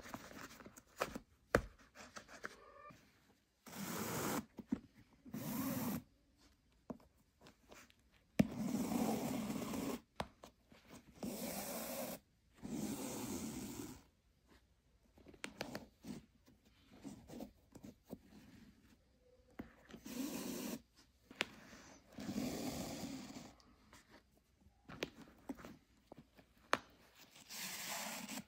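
Flat shoelaces being pulled and slid through an Air Jordan 4 sneaker's eyelets by hand, a rustling scrape in separate pulls of about a second each with small clicks in between.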